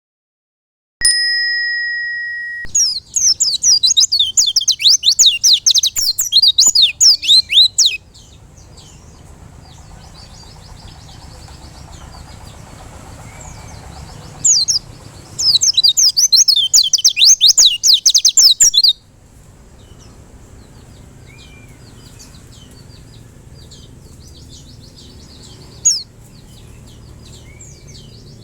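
A short, steady ringing tone about a second in, then a white-eye (pleci) singing a fast, high twittering song in two loud bouts of about five and four seconds. Softer chirps continue between the bouts, with a single loud chirp near the end.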